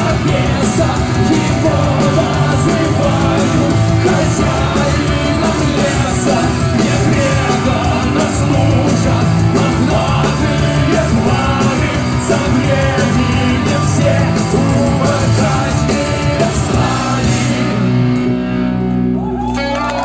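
Live rock band and singers performing the closing stretch of a song, with sung and shouted vocals over a steady drum beat. About two seconds before the end the band drops away, leaving a few held notes ringing.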